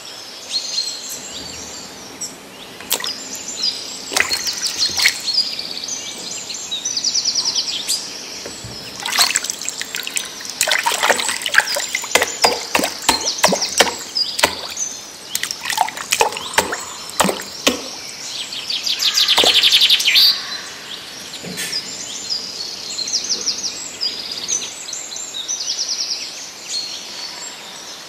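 Several birds chirping and trilling, with a loud rapid trill about two-thirds of the way through. In the middle, a hand sloshes and splashes in shallow muddy water, with short sharp clicks.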